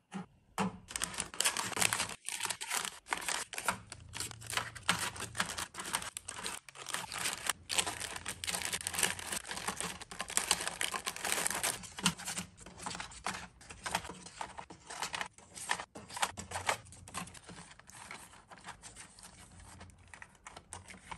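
Wrapped plastic tea and snack sachets crinkling and rustling as they are handled and slotted one by one into drawer compartments, with many light clicks and taps. Near the start a plastic divider is set into the empty drawer.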